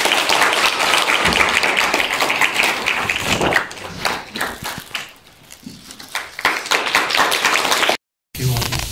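Audience applauding, dense at first and thinning to scattered clapping after about three and a half seconds, then cut off abruptly near the end.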